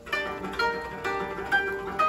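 Koto played solo: a quick run of plucked notes, several a second, each string ringing on after it is struck.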